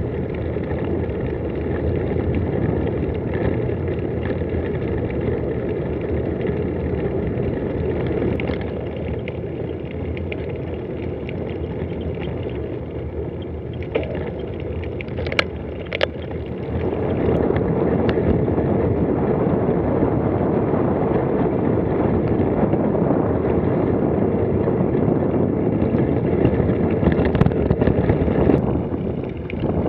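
Steady rush of wind on the microphone and tyre rumble from a bicycle rolling along a gravel forest road. It gets louder a little past halfway, just after two sharp clicks.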